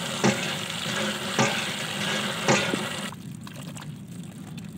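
Water poured into a plastic tub onto a heap of wet water lily seeds, with a few louder splashes; the pour stops about three seconds in, leaving quieter squelching as hands squeeze and rub the seeds in the water. It is a washing step to rinse the slimy coating off the seeds.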